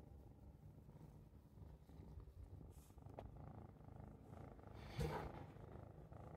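Domestic cat purring, a faint low rapid rumble, content while its head is scratched. A brief louder rustle about five seconds in.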